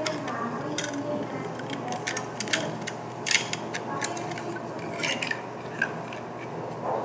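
Hard plastic parts of a Glock 43 magazine and its plus-two extension rubbing and clicking while handled in the fingers, with a few sharp clicks at irregular moments.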